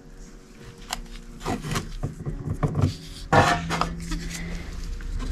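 Small objects being handled on a wooden shelf by a gloved hand: rubbing, scraping and light knocks as photos, boxes and trinkets are picked up and shifted. There is a louder scrape a little past halfway.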